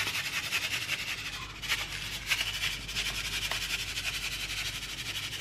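Sesame seeds being sprinkled onto khachapuri dough: a fast, light pattering, with a few louder ticks.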